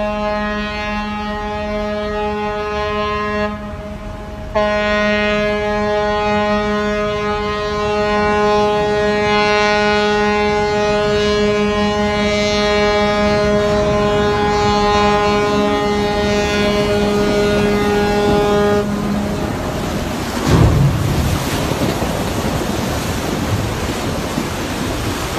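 Cargo ship's horn blowing a long, steady blast, broken briefly about four seconds in, then stopping about three-quarters of the way through. After it comes a rushing of water and surf from the hull running aground on the beach, with a low thump.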